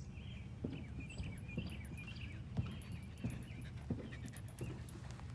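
Footsteps walking at an easy pace on a concrete driveway, about one and a half steps a second, with short high chirps over them.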